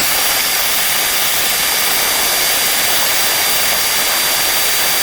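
Vacuum cleaner running steadily with a thin high whine, sucking up loose lint and debris from inside a clothes dryer's blower fan housing.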